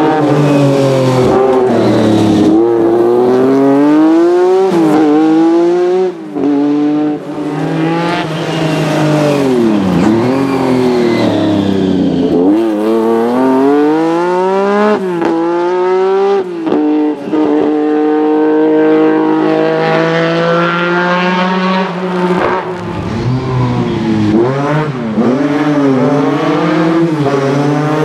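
Lancia Stratos rally car's V6 engine at full throttle, its pitch climbing through each gear and dropping sharply on shifts and lifts, over and over.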